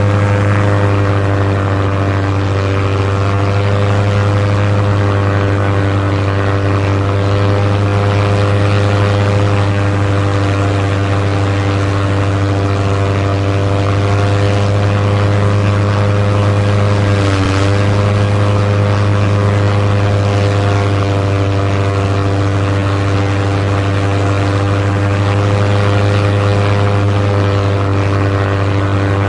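Propeller plane's piston engine running at steady power, a constant droning hum with a brief dip and wobble in pitch about 17 seconds in.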